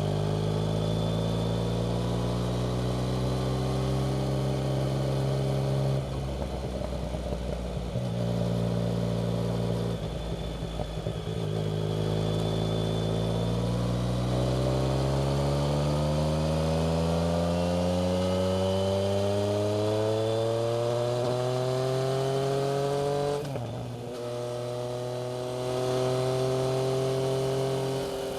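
Yamaha MT-09's three-cylinder engine through a Black Widow aftermarket exhaust, riding along: running steadily, with rough patches about six and ten seconds in, then a long rise in revs as it pulls through a gear. Near the end the revs drop suddenly and climb again before settling.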